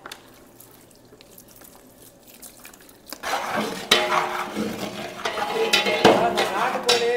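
A long wooden paddle stirring in a large aluminium cooking pot, scraping and churning through the contents from about three seconds in, with a few sharp knocks against the pot.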